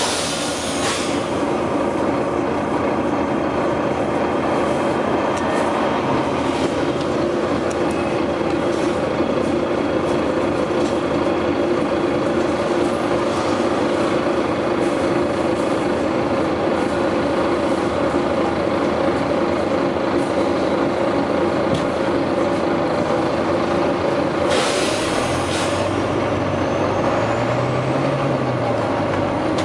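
Volvo B9TL double-decker bus engine running steadily with a loud, continuous drone. Short sharp hisses of released air come near the start, and a longer one comes near the end, typical of the bus's air brakes. Over the last few seconds a low engine note rises and falls.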